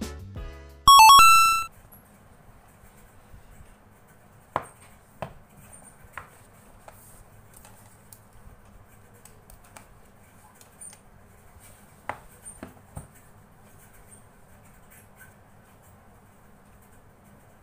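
A short, bright chime of a few ringing notes about a second in. After it the room is quiet, apart from scattered light taps and clicks as hands handle a cardboard Redmi 10 phone box on a desk.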